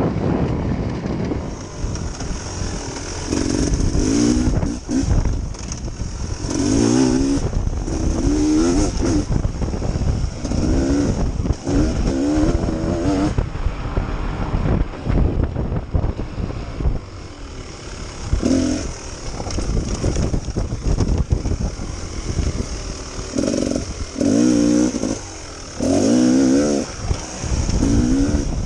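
Dirt bike engine revving up and easing off again and again, about a dozen short throttle bursts rising in pitch, over a steady low rumble from the ride.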